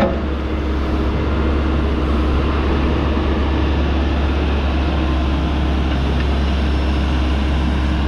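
John Deere 310EK loader backhoe's diesel engine running steadily while the backhoe boom and bucket are worked on the hydraulics.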